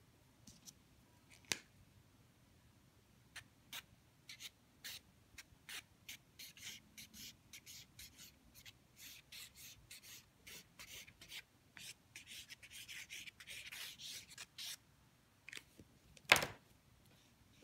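Pen tip drawing quick short strokes on watercolour paper, a dry scratching, thickening into a longer run of scribbling about twelve seconds in. A sharp click near the end is the loudest sound, with a smaller click about a second and a half in.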